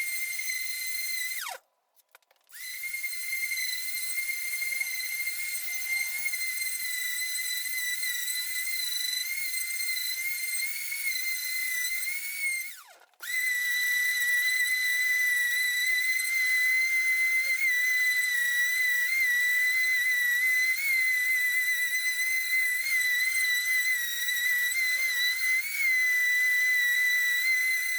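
Electric orbital sander running with a steady high whine as it sands old, sticky varnish off a wooden table top. About two seconds in and again near thirteen seconds, its pitch sinks as it cuts out, then it runs on.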